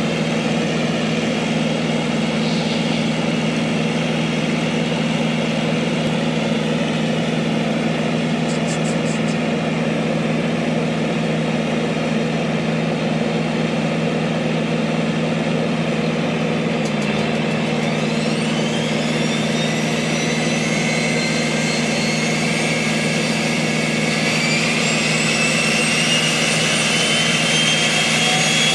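Twin Otter's Pratt & Whitney PT6A turboprop engines running on the ground with a steady low hum. About two-thirds of the way through, a high turbine whine starts rising and keeps climbing as an engine spools up, and the sound grows slightly louder.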